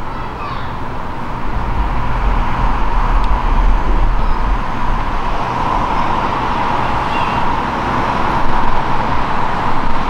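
Street traffic: vehicles passing on the road, a steady wash of noise with a low rumble that swells a couple of seconds in.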